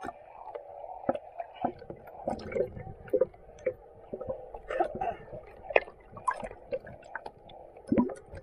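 Sea water sloshing and gurgling against a waterproof action camera housing as it bobs in and out of the surface, with irregular splashes and sharp clicks.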